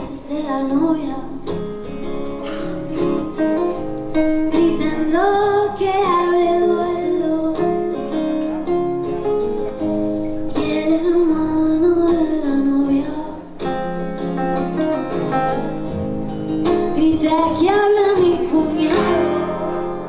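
A woman singing live to the accompaniment of two acoustic guitars, her melodic line sliding between held notes over the plucked guitar parts.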